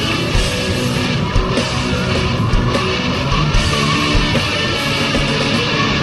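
Rock music with electric guitar playing steadily.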